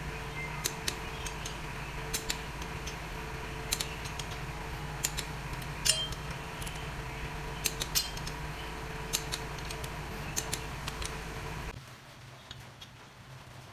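Irregular sharp metallic clinks and clicks of a hand wrench working on the flywheel and its bolts on a Suzuki K6A crankshaft, over a steady background hum. The hum drops away suddenly near the end.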